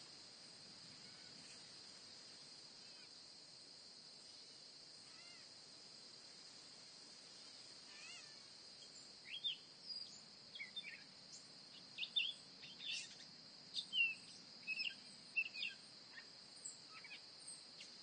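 Outdoor nature ambience: a faint, steady high insect trill throughout, joined about halfway through by songbirds giving many short chirps and whistles.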